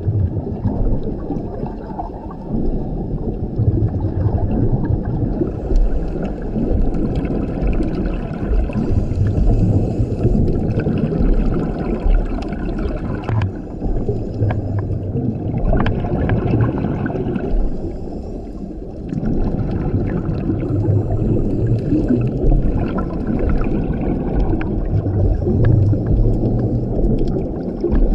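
Underwater sound of a scuba diver breathing through a regulator, with a continuous rumble of exhaled bubbles and fainter hissing bursts coming and going, and a brief lull about two-thirds of the way through.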